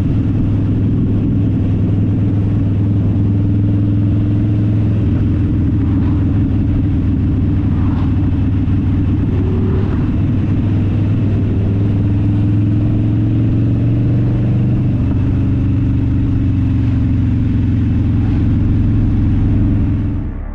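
Harley-Davidson Dyna Fat Bob's V-twin engine and exhaust running steadily while under way, an even loud drone with small rises and falls in pitch.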